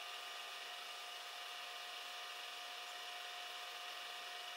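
Milling machine running with its spindle turning an end mill, giving a steady whine made of several fixed tones over a hiss, with no change in pitch or level.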